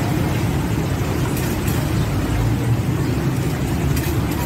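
Steady low rumble of street traffic and engines, with a few faint metallic clinks from a ladle against a metal tray about a second and a half in and again near the end.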